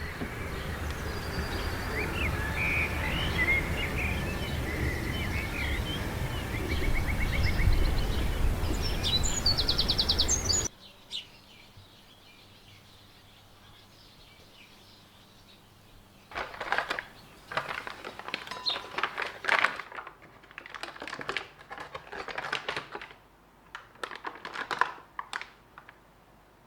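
Outdoor seaside ambience: a steady low rumble with birds chirping, ending in a rapid trill. After about ten seconds it cuts off abruptly to a quiet room, where bursts of quick clicking and clattering come and go.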